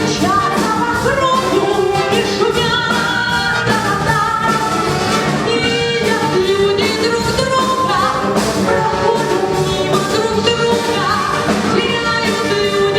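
A female soloist singing a pop song with live orchestral accompaniment and a steady beat.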